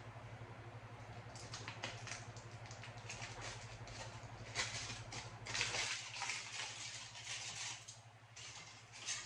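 Close-miked chewing and mouth sounds of someone eating a hamburger: irregular wet, crackly clicks that come in clusters, busiest about five to six seconds in. Under it runs a low steady hum that stops suddenly about six seconds in.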